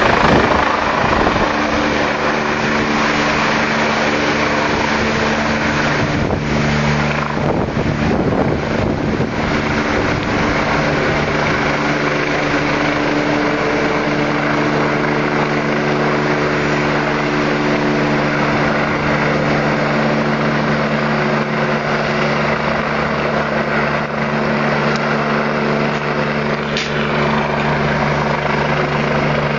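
Rescue helicopter hovering and flying slowly during a winch lift, its rotor and turbine running with a steady deep hum over a loud rushing noise. It is loudest at the start, while it is right overhead.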